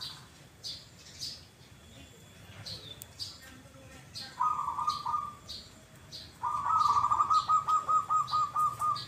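Caged zebra doves (perkutut) cooing. A short coo about four and a half seconds in is followed by a longer, louder run of quick pulsing coos, about five a second, from about six and a half seconds on. Short sharp chirps from another small bird repeat throughout.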